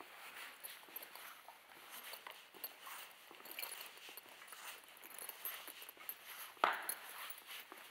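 Footsteps scuffing and crunching over a debris-littered concrete floor, faint and irregular, with one sharp knock near the end.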